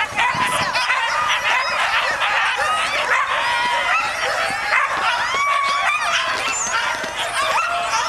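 Many harnessed sled dogs (huskies) barking and yipping at once in a dense, continuous chorus of high yelps, the excited racket of a team held at the start and eager to run.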